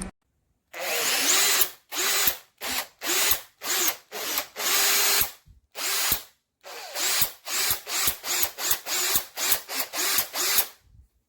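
Makita DHP458Z 18 V cordless hammer drill triggered in quick repeated bursts, about fifteen in all. Each time the motor whirs up and winds down, with a short pause about six seconds in.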